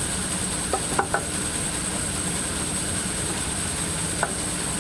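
Bandsaw running steadily with no cut under way, a constant machine hum. A few short knocks about a second in and once near the end, like wood set down on the saw's metal table.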